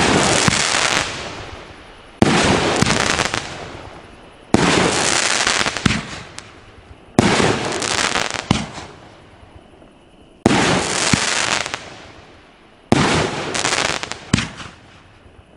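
A 500-gram consumer firework cake firing shot after shot: six loud bangs about two to three seconds apart. Each is followed by a crackling that fades over a second or two, the sound of chrysanthemum shells with crackling brocade crowns breaking.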